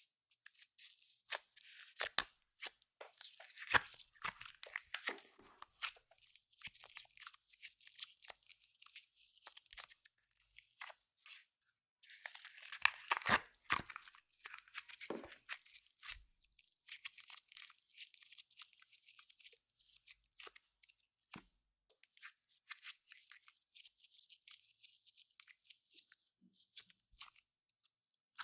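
Clear slime mixed with makeup and glitter being worked by hand, giving a dense run of small crackling and popping clicks, loudest in a cluster about halfway through.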